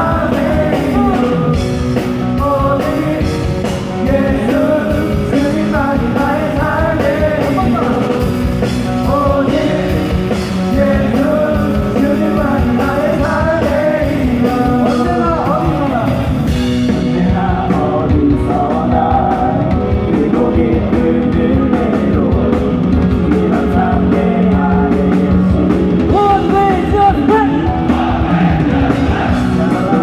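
A live band with electric guitar plays a praise song while a group of young men sing it together into microphones. The high end of the sound turns duller about halfway through.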